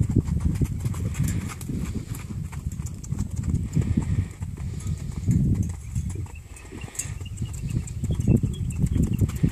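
Horse's hooves drumming on the dirt of a round pen as it canters around the rail, in a dense run of dull thuds that swells louder about five seconds in and again near the end.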